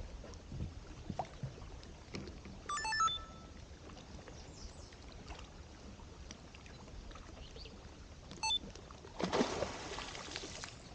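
A beaver diving underwater with a short splash about nine seconds in, the loudest sound here, over faint water lapping around a drifting kayak.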